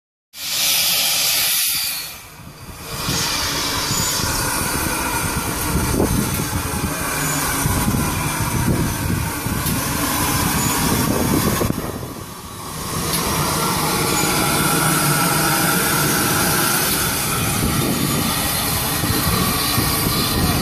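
Steam locomotive, the GWR 14xx class 0-4-2 tank engine No. 1450, hissing steam loudly and steadily, with two short lulls about two seconds in and about twelve seconds in.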